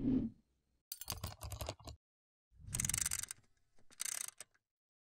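Sound effects for an animated logo: a rapid run of mechanical clicks about a second in, a short burst of rushing noise near the middle, and a shorter run of clicks near the end.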